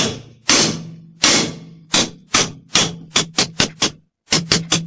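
A claw hammer striking a steel member again and again, trying to drive it loose after its welds have been cut. The blows come slowly at first, then faster, with a short pause and four quick blows near the end. The steel rings after each strike.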